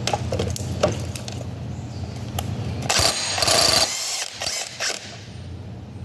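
Impact wrench on a 1 5/8-inch socket hammering at the big nut of a 2-inch Safeway valve: a loud burst of about a second around three seconds in, then two short bursts, after clicks and knocks of the socket being fitted.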